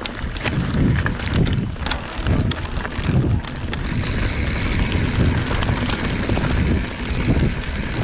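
Mountain bike rolling over a dirt and gravel trail: a low, uneven tyre rumble with wind buffeting the microphone. Clicks and rattles from the bike over stones come mostly in the first half, and the noise grows steadier after that.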